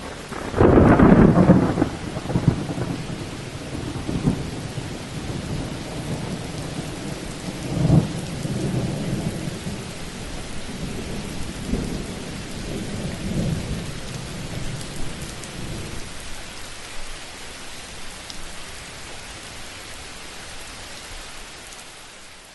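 Thunderstorm: a loud thunderclap about half a second in, followed by rolling rumbles that come again several times and die away, over steady rain.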